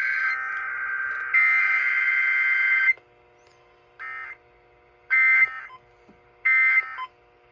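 Emergency Alert System SAME digital data bursts, a harsh buzzing warble: two long header bursts, then after a pause several short bursts about a second apart.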